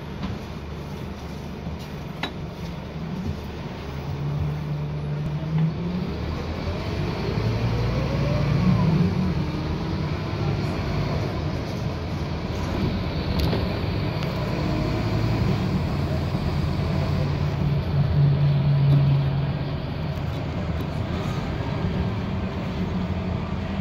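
Scania K230UB bus's five-cylinder diesel engine and ZF automatic gearbox, heard from inside the saloon while the bus is under way. The engine note rises and falls as it accelerates through the gears, with a rising gearbox whine. It pulls hardest about nine seconds in and again around eighteen seconds, then eases off shortly before the end.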